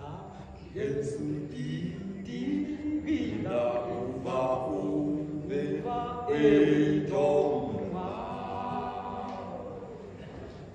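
Two men singing together unaccompanied, on long held notes that fade away near the end.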